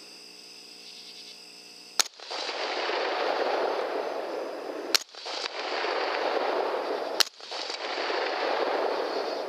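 Three sharp rifle shots about three seconds apart, each followed by a loud rushing noise lasting a couple of seconds. Insects chirp steadily before the first shot.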